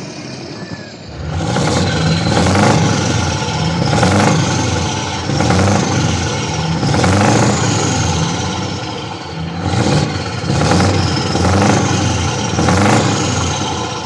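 Heavy truck's diesel engine revved over and over in about nine short blips, each rising and falling, with a high whistle that climbs and drops with the revs.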